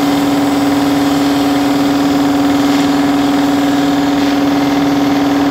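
A steady machine hum at one unchanging pitch, running at constant speed.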